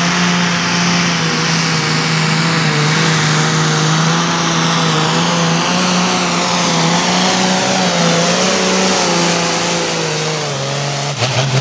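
Turbocharged diesel engine of a Ford pulling tractor held at full throttle while it drags a weight-transfer sled, with a high whine falling in pitch as it passes. Near the end the engine note drops and a few sharp knocks sound.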